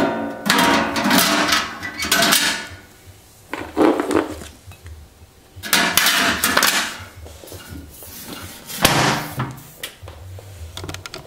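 Metal basket and stainless lid of a Masterbuilt Butterball XXL electric turkey fryer being handled and set back in place: several separate bursts of metal clattering and knocking, the last and loudest of them near the end as the lid is shut.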